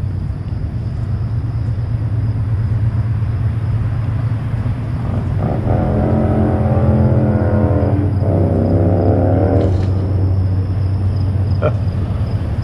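Steady low rumble of traffic on the bridge. From about five seconds in, a droning pitched sound joins it for about four seconds, breaking briefly in the middle, then stops.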